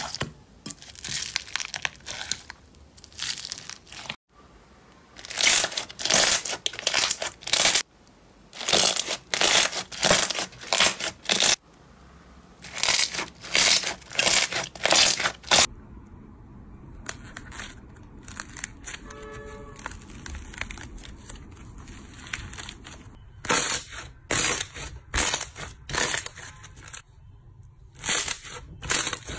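Hands squeezing and pressing slime, foam-bead slime among them. Repeated bursts of crackling and squishing, each a second or so long, with a quieter stretch in the middle.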